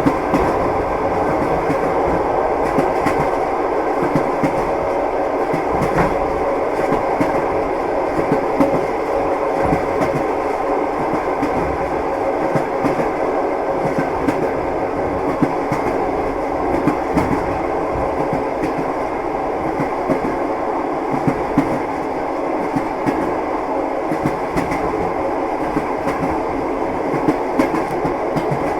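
Moving train's wheels clacking over the rails, with frequent short clicks over a steady running rumble.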